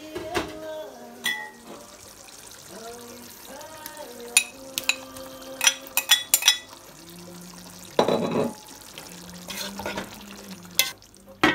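A metal spoon clinks and scrapes against a glass bowl as chopped tomatoes are tipped into a pot of simmering beef curry. Several sharp clicks come in the middle, then a short burst of stirring in the pot, over a man's voice singing in the background.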